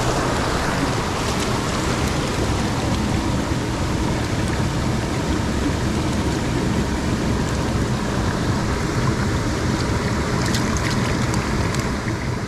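River water rushing steadily, with a few faint ticks about ten seconds in.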